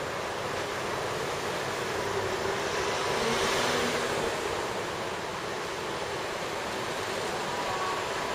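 Steady outdoor rushing noise that swells slightly about three to four seconds in, with no distinct calls or knocks.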